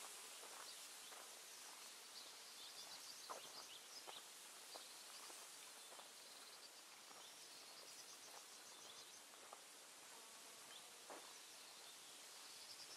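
Near silence: faint background hiss with soft, high chirping in short repeated runs and a few faint light ticks.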